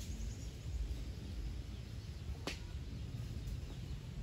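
Low rumbling outdoor background noise with a single sharp click about two and a half seconds in.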